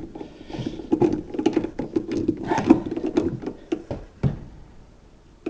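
Electrical outlet and its stiff wires being pushed and folded into a wall box by hand: a quick run of clicks, taps and scraping, busiest in the first three seconds or so, then thinning to a few isolated clicks.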